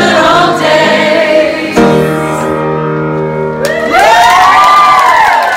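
Amateur choir singing the end of a pop song together, holding the final chord for about two seconds. The chord then breaks off into whoops and cheers from the singers, with clapping starting near the end.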